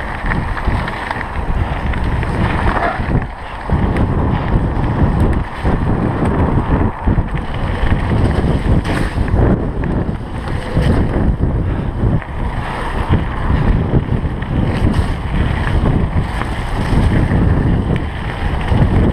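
Mountain bike ridden fast along a dirt trail: a steady low rush of wind buffeting the bike-mounted microphone, mixed with the tyres rumbling over the ground, easing briefly about three and a half seconds in.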